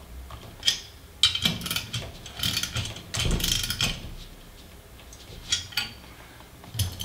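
Socket wrench ratchet clicking in several short runs as it is swung back between turns, torquing down the cylinder-head acorn nuts of an 80cc two-stroke bicycle engine.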